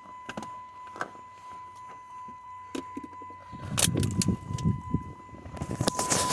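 Scattered clicks and knocks inside a car, then from about halfway a louder low rumbling with more sharp clicks, the loudest near the end, over a faint steady high tone.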